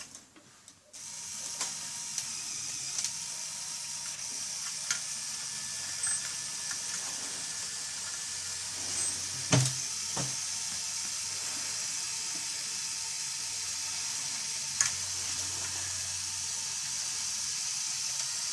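Motorised Lego Technic excavator running, its small electric motors and plastic gears whirring steadily as the arm lifts a load, with a few sharp plastic clicks.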